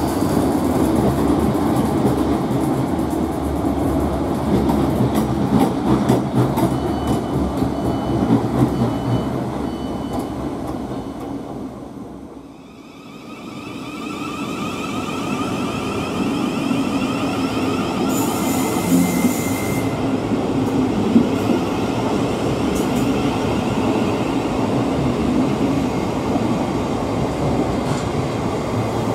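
Electric multiple-unit trains on the rails: first a steady rumble of wheels as a train runs past the platform. After a brief drop about halfway, an electric train's traction motors whine in several tones over wheel and rail noise, with a short high hiss shortly after.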